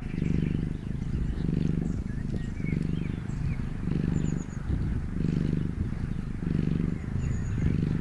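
Domestic cat purring: a low rumble that swells and eases about once a second. A few faint, high bird chirps sound in the background.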